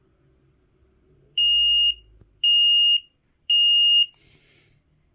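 FireAngel SB1/R smoke alarm sounding on its test button: three loud, high-pitched beeps of about half a second each, about a second apart, all at one steady pitch.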